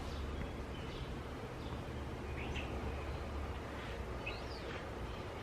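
A few short, faint bird chirps over a steady low background rumble outdoors.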